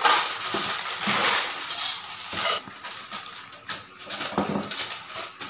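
Aluminium foil crinkling and rustling as hands crimp it down around the rim of a cake pan, loudest at the start, then in irregular bursts of crackle.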